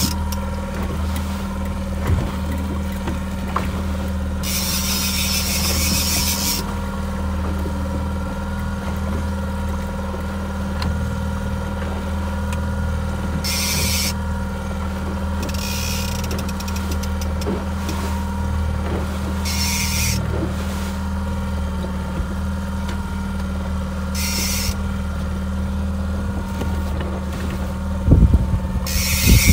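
Boat's outboard motor running steadily at trolling speed while a salmon is fought on a trolling rod. Several short buzzing bursts from the reel's drag as the fish takes line, one about four seconds in lasting about two seconds, the others shorter. Low thumps near the end.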